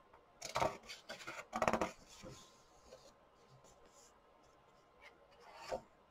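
Paper pages of a thick colouring book being turned by hand, rustling in a few short bursts in the first two seconds and once more near the end.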